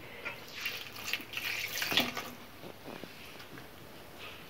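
A hand mixing warm water into flour and semolina for msemen dough. Faint, irregular wet squishing and dabbing as the water is worked into the flour.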